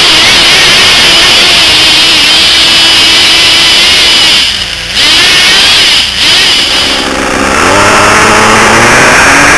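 Traxxas Nitro Stampede RC truck's small 3.3 nitro engine running hard and revving as the truck drives through snow, its pitch rising and falling. The engine eases off twice in the middle, briefly dropping in loudness.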